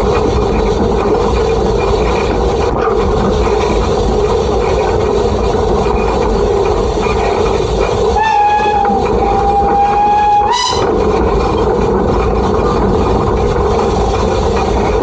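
Steam locomotive whistle blown once for about two and a half seconds, a single steady note that swoops up in pitch just before it cuts off, over the steady running noise of the Peckett industrial steam locomotive.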